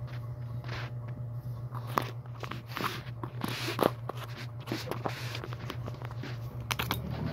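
A paper slip crinkling and rustling as it is handled, in short irregular crackles with a couple of sharper ones, over a steady low hum.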